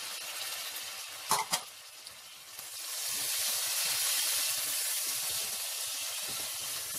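Chopped tomatoes and onions sizzling in hot oil in a steel pot as they are stirred, with two quick knocks about a second and a half in. The sizzle grows louder from about three seconds in.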